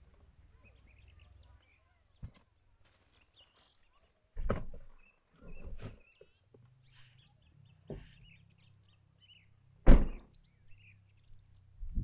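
A series of thuds and knocks as camping gear is loaded into the open boot of an SUV, the loudest about ten seconds in. Small birds chirp now and then in the background.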